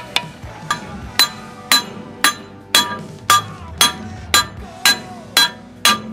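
Hammer tapping steadily on metal, about two blows a second, each with a short metallic ring: a tight interference-fit bearing seal housing being driven into an anchor winch's cast iron gearbox.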